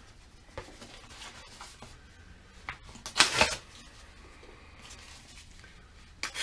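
A piece of sandpaper handled and folded by hand: short papery rustles, with a louder rasp about three seconds in.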